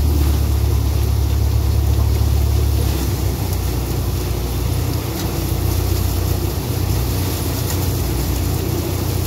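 Swaraj tractor engine running steadily under load, driving a straw thresher that blows chopped straw out of its chute: a loud, steady low hum under a rushing hiss of the thresher's blower and straw.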